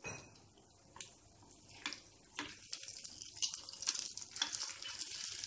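Eggs frying in hot ghee, sizzling, while a silicone spatula knocks and scrapes on a nonstick pan to flip them. There are a few short knocks in the first half, and the sizzle grows louder after the eggs are turned.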